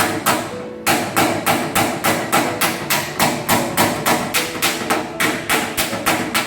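Hammer beating dented sheet-metal bodywork in quick, even strokes, about four a second, with a short pause under a second in; background music plays under it.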